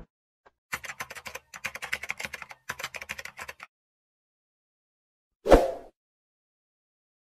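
Computer keyboard typing sound effect, quick clicking keystrokes in three short runs. About five and a half seconds in comes a single loud hit with a short tail, louder than the typing.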